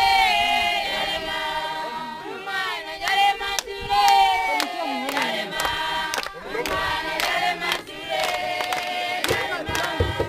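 A group of children and young people singing a song together, with sharp handclaps along with the singing.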